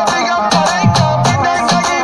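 Loud music with a quick, steady percussive beat, a repeating bass line and a melody on top.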